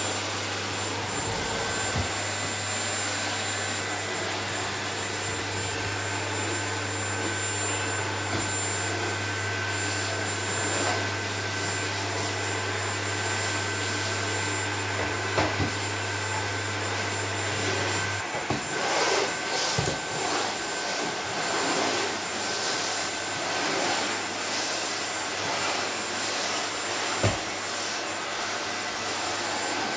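Canister vacuum cleaner running steadily, its nozzle worked over a wooden floor, with a thin whine over the motor noise. A low hum drops out a little over halfway through, and a few short knocks follow.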